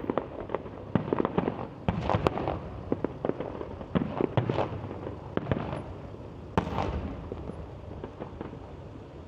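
Firework display: a rapid series of sharp bangs and crackles from bursting shells, coming in clusters, with one big bang about six and a half seconds in, then thinning out.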